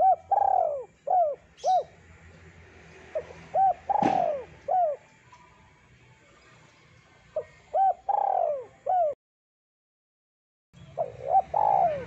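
Spotted dove (tekukur) cooing: phrases of three to five short, arched coos repeated every few seconds. A sharp click sounds about four seconds in, and the sound cuts out completely for a second and a half before the last phrase.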